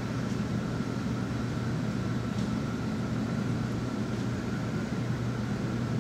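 Steady low hum and rush of air from a ventilation fan, with a faint steady whine above it and a few faint ticks.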